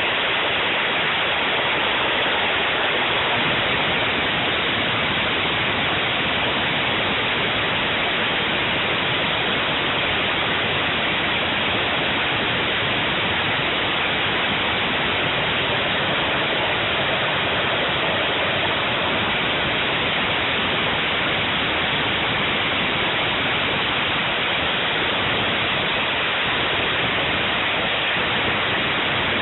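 Home-built jet engine on a go-kart running steadily: a constant, even rushing noise with no change in pitch or level.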